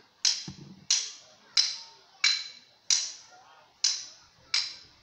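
A run of seven sharp, hard clicks, about two-thirds of a second apart, each with a brief high ring.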